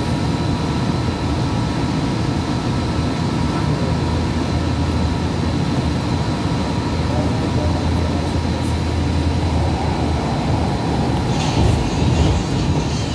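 A New Jersey Transit Hudson-Bergen Light Rail car running at speed, heard from inside: a steady rumble of the wheels on the rails with a few faint, steady high whine tones. There is a brief louder patch near the end.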